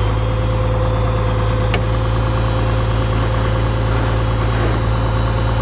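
Farmall 856 tractor's six-cylinder 407 diesel engine running at a steady speed, with one sharp click about two seconds in.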